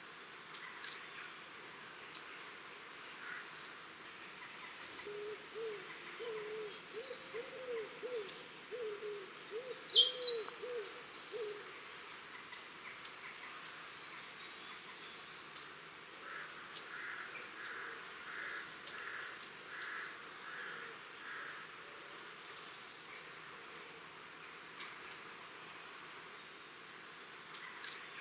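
A flock of long-tailed tits calling, with short, thin, very high-pitched contact calls scattered throughout. From about five to eleven seconds in, a lower bird gives a run of hooting notes, and a sharp call about ten seconds in is the loudest sound.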